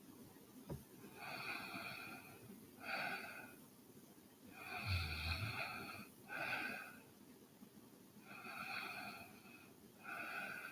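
A sleeping woman breathing audibly in slow in-and-out pairs, three breaths in and out. The loudest breath, about five seconds in, carries a brief low snore.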